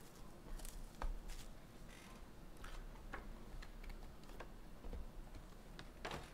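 Cardboard trading-card hobby box being opened by hand and its mini boxes pulled out and set down on the table: a string of faint, irregular light clicks and taps, with a sharper knock near the end.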